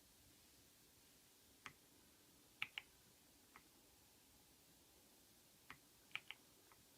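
Keys on a Keychron V6 Max mechanical keyboard with Gateron Brown tactile switches being pressed now and then: about eight separate clicks, some in quick pairs, over a faint steady hiss.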